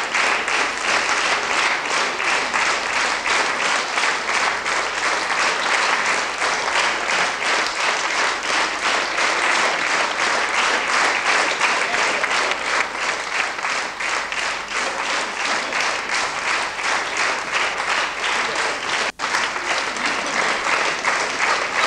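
Audience applauding, steady and dense, for the performers' bows, with a momentary break in the sound about nineteen seconds in.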